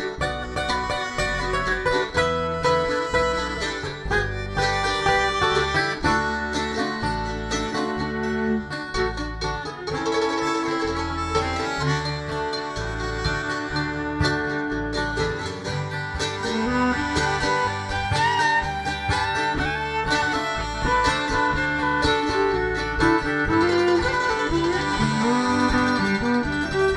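Live acoustic string band playing an instrumental break of a country-folk song: steady plucked-string accompaniment, with a melody line that slides in pitch through the second half.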